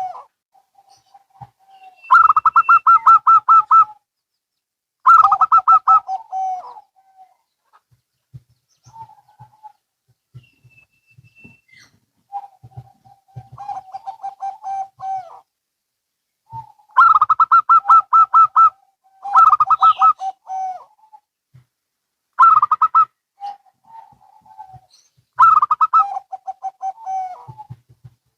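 Zebra doves (perkutut), a local and a Bangkok-bred bird, cooing back and forth. Repeated phrases of rapid, pulsing coos come every few seconds, with a quieter stretch near the middle.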